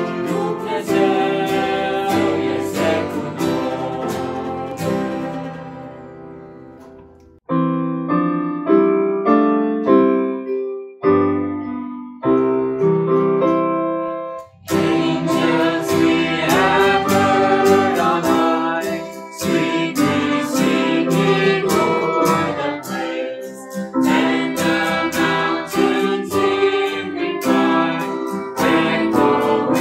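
Group singing with fiddle, acoustic guitars and electric keyboard; the song fades out about six seconds in. A keyboard plays a short passage of notes alone, then the voices, fiddle and guitars come back in about halfway through.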